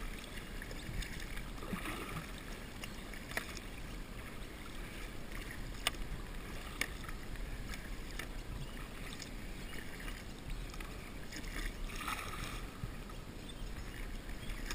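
Double-bladed kayak paddle stroking through calm water, with soft splashes and drips as the blades dip and lift. A few short, sharp clicks come through the middle.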